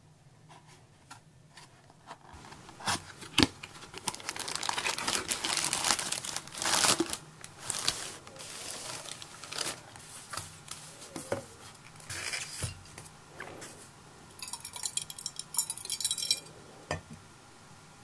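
A cardboard box being unboxed and a styrofoam packing block handled: tearing, crinkling and rubbing of packaging with scattered knocks and clicks.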